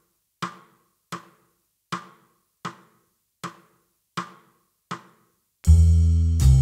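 Count-in for a medium-swing jazz backing track at 80 bpm: seven short, even percussive clicks about three quarters of a second apart. About five and a half seconds in, the rhythm section comes in with a strong bass line and chords.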